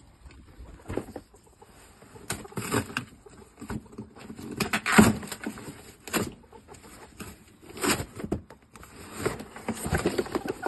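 Irregular knocks, thumps and rustling from shipping boxes and live game fowl being handled, with the loudest knock about halfway through.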